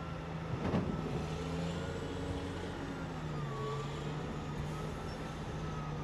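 Caterpillar 990 wheel loader's diesel engine running steadily while it loads a dump truck, with a faint wavering whine above the engine note.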